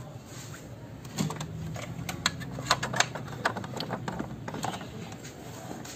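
Irregular mechanical clicks and ticks from the internal mechanism of an opened Epson ink-tank printer, over a low steady hum that starts about a second in.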